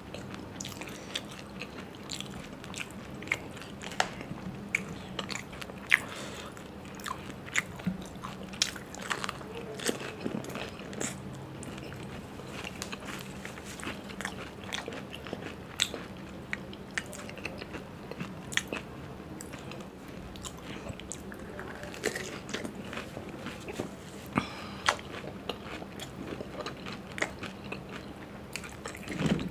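Close-up chewing and crunching of golgappe (pani puri), with sharp crunches at irregular intervals.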